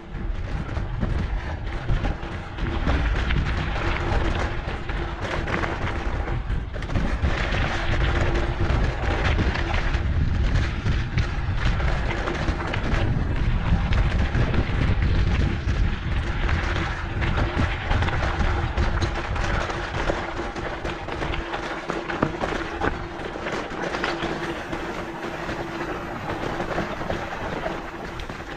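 Wind buffeting the microphone over the constant rattle and crunch of a mountain bike riding a rough dirt trail, with a faint steady hum underneath.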